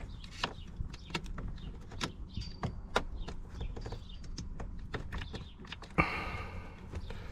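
Scattered small sharp clicks and taps, metal on metal, as a drill bit is worked into the release hole of a Chevy Silverado's ignition lock cylinder to press down the retaining tab.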